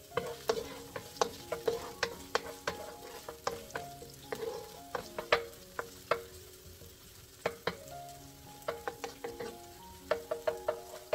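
Wooden spoon stirring red onion and garlic frying in oil in a stone-coated wok: irregular knocks and scrapes of the spoon against the pan over the sizzle of the oil. Soft background music plays underneath.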